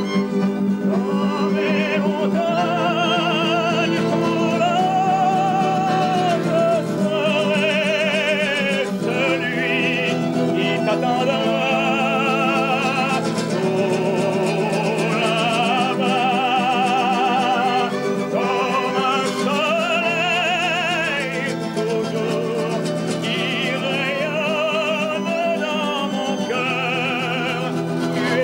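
Live acoustic music: a man singing a melody with vibrato to an acoustic guitar, with a violin playing along.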